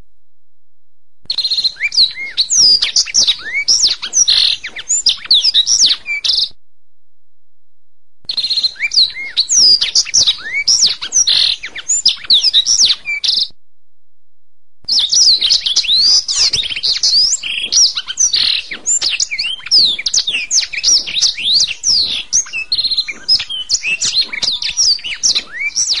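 Domestic canary singing: rapid trills and quick rising and falling chirps. The song comes in three long bouts and breaks off twice for a second or two, once about six and a half seconds in and again about thirteen and a half seconds in.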